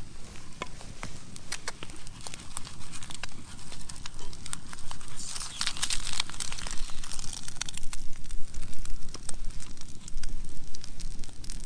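Wood campfire crackling and popping under a grill. About five seconds in, a louder scraping rasp lasts a second or two as a flat wooden stick pushes a fried egg out of a metal pan.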